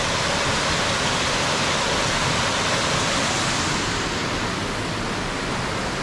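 A small waterfall on the Ehrbach stream, rushing steadily: an even hiss of falling water that eases a little after about four seconds.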